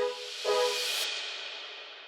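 Music: two short horn-like notes, then a swelling hiss that drops away sharply about a second in and fades out.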